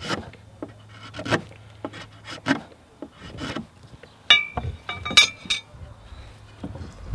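Drawknife shaving a wooden tool handle: a run of short scraping strokes, about two a second, taking the last wood off the end so it fits tightly into the tool. A little past four and five seconds in, two sharp clinks with a brief ringing tone.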